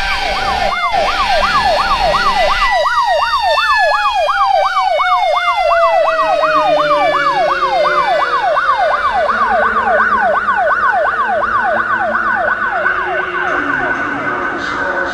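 A siren in a fast yelp, rising and falling about three to four times a second. Under it, a slower tone glides steadily downward. The yelp fades out near the end, leaving a steady high tone.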